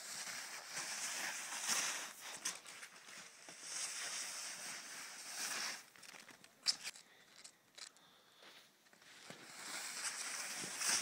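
Plastic snowboard scraping and hissing over crusty snow, with crunching snow underfoot. The scraping eases off about halfway through, with a couple of sharp clicks, then picks up again near the end.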